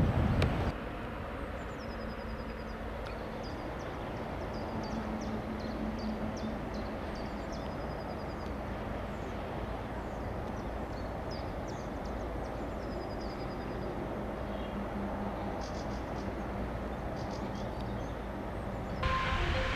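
Faint, steady running sound of a distant České dráhy Pendolino electric train approaching slowly, a low rumble with a faint hum, while small birds chirp again and again. About a second before the end a louder train sound cuts in.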